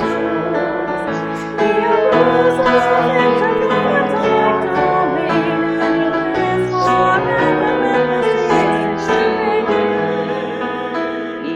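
Music: singing with piano accompaniment, sustained sung notes over piano chords.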